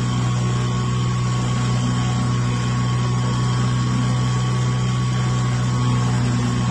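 Small fishing boat's outboard motor running at a steady speed: an even low drone with a faint thin whine above it.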